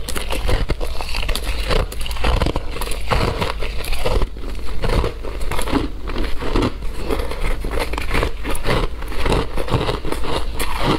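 Shaved ice being bitten and chewed close to the microphone: a dense, rapid run of crisp crunches and crackles as the icy chunks break between the teeth.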